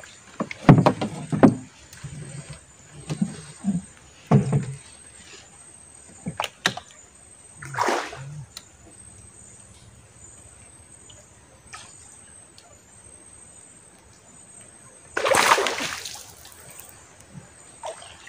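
Water splashing and sloshing beside a small boat as a hooked fish is brought to the landing net, with a few sharp knocks in the first seconds and a longer, louder splash about fifteen seconds in.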